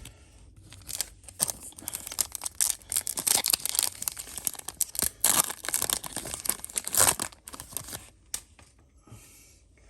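Foil Yu-Gi-Oh booster pack wrapper being torn open and crinkled by hand: a dense crackling rustle that starts about a second in and dies away about eight seconds in.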